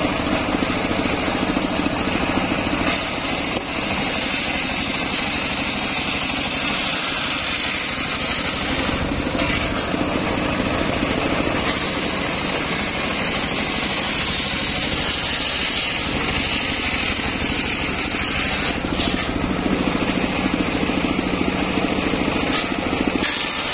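Homemade circular saw bench running as it rips a waru log into battens. It is louder while the blade is cutting, for the first few seconds and again near the end, and steadier in between.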